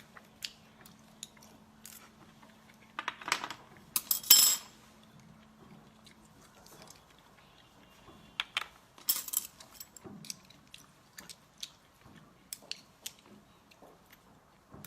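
Oyster shells and utensils clicking and clinking as oysters are eaten, in scattered short knocks with a louder clatter about four seconds in and another around nine seconds.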